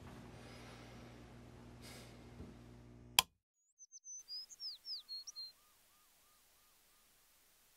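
A low, steady hum cut off by a single sharp click about three seconds in; after a moment of silence a bird chirps a quick series of short, high, falling notes.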